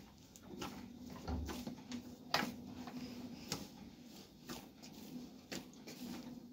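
Irregular light knocks and clicks, roughly one a second, from hands working with kitchen things on the floor: dough worked in a metal bowl, pans and bottles set down, with a dull thump about a second in. A faint steady hum runs underneath.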